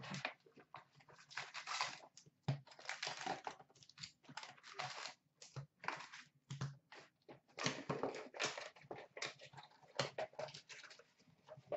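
A cardboard hobby box of trading cards being opened and its foil-wrapped packs pulled out and stacked: an irregular run of crinkles, rustles and light taps.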